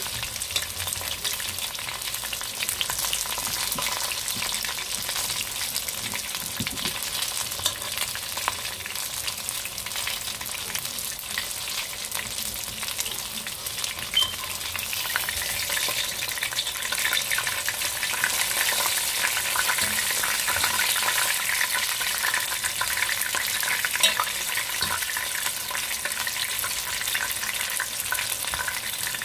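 Chicken wings deep-frying in hot oil in a pot: a steady, dense crackling sizzle that grows a little louder in the second half, with a few sharp clicks.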